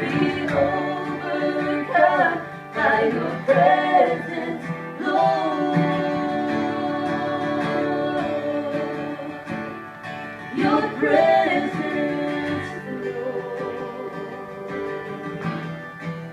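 A song sung with plucked-string accompaniment: long held notes and swelling phrases over sustained chords, dying away over the last few seconds.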